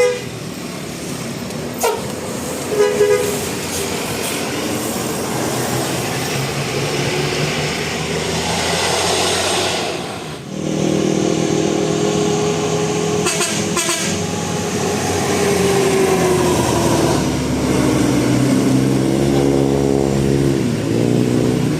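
Bus telolet horn, a multi-tone musical horn, playing a tune over the bus's running engine: a few short toots, then long held notes, and sliding notes near the end.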